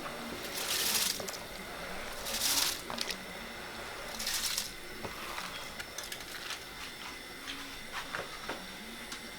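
Rice being tipped into a pot of boiling chicken stock in three short pours, each a brief hissing splash, followed by a few light clicks.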